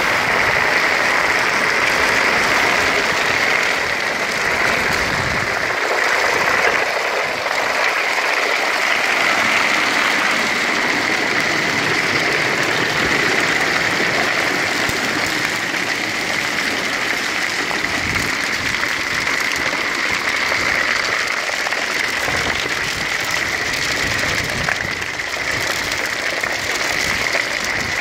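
Roof gravel being vacuumed through a long suction pipe: a steady, dense rattle of pebbles hitting the pipe walls with a rush of air.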